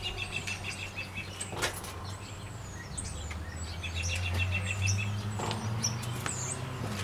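Small birds chirping, with rapid high trills near the start and again about four seconds in. A steady low hum runs underneath, and there is one sharp click about one and a half seconds in.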